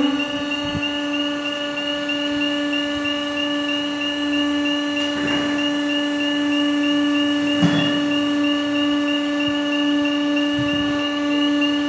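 Steady mechanical hum of a running machine motor, one unchanging pitch with overtones, with a couple of faint knocks midway.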